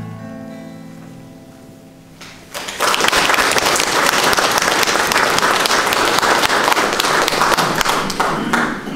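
The song's last sung note and acoustic guitar chord die away over about two seconds. Then the audience breaks into applause, dense steady clapping that lasts until near the end.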